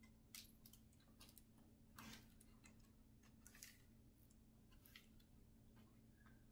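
Near silence: faint rustles and light clicks of a picture book's pages being handled and turned, the loudest about two seconds in.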